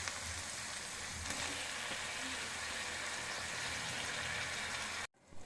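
Chopped onions frying in oil in a kadai, a steady gentle sizzle, cooked until glassy. It cuts off suddenly near the end.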